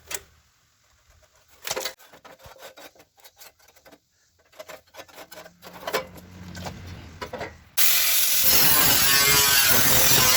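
Light scratching and handling clicks of marking on sheet metal. About eight seconds in, a power cutting tool starts abruptly with a loud, steady hissing whir, consistent with cutting out the rusted core support section.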